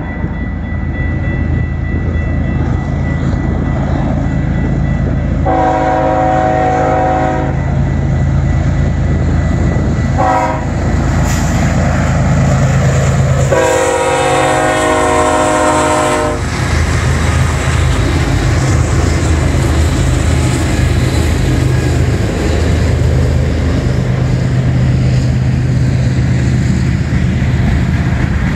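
BNSF freight train's lead diesel locomotives running hard upgrade as they pass close by, a steady deep engine rumble with wheels on rail. The horn sounds a long blast about five seconds in, a short one near ten seconds and a final long blast of about three seconds from around fourteen seconds: the end of the long-long-short-long signal for a grade crossing.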